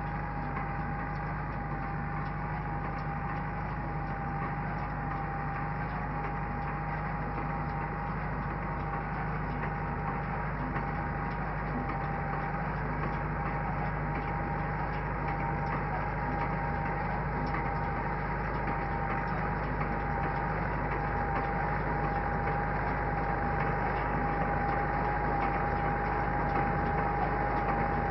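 Same Explorer 65 tractor's engine running steadily while it pulls a hay baler through the windrows, with a steady whine over the drone. It grows slightly louder toward the end as the tractor comes closer.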